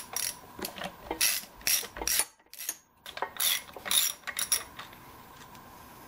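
Ratchet wrench with a 13 mm socket working nuts loose: bursts of quick pawl clicks, a short pause in the middle, then more clicking that stops about four and a half seconds in.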